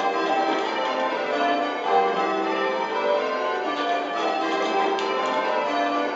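Eight tower bells change ringing Spliced Surprise Major: a continuous run of strikes in quick even succession, each bell's tone ringing on under the next, heard from the ringing chamber below the bells.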